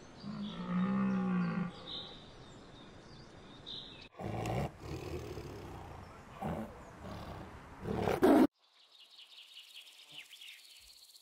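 Three animal sounds in turn. First a deer stag bellows once, a low call of over a second. Then a tiger growls in short bursts, the loudest near the end of that stretch. Last, a northern cardinal gives a rapid series of high, clear notes.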